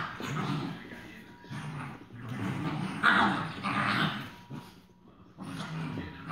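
Two Rhodesian Ridgeback puppies growling as they play-fight, in a run of rough growling bouts with a short pause about five seconds in; the loudest comes about three seconds in.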